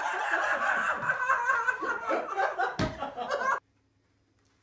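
Laughter lasting about three and a half seconds, with a thump about three seconds in, then it cuts off abruptly.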